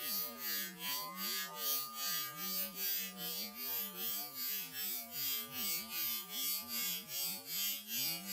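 A small electric tool buzzing. It pulses in and out about two and a half times a second over a steady high whine.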